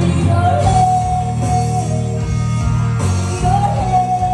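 Live band playing rock-style music: a woman sings long held notes into a microphone over strummed acoustic guitar, electric guitar and bass, with a steady beat underneath.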